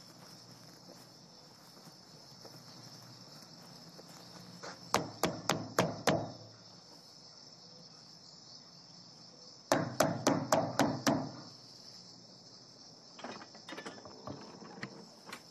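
Crickets chirping steadily, with two bouts of sharp knocking on a door: about five quick knocks some five seconds in, and about six more some ten seconds in. A few fainter knocks come near the end.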